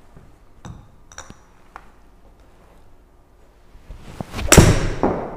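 A Srixon ZX hybrid striking a golf ball off a hitting mat about four and a half seconds in: one sharp, loud impact with a short tail. A few faint clicks and clinks come before it.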